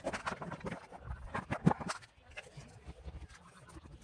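Hard plastic air filter housing knocking and clattering as it is handled, a quick run of clicks and knocks with the loudest a little before the middle, then only faint scattered ticks.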